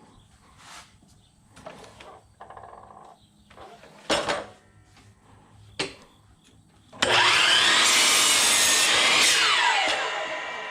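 A few knocks as a board is set against the saw stop, then about seven seconds in an electric miter saw starts, whines up to speed and cuts through the board, its motor winding down with a falling whine near the end.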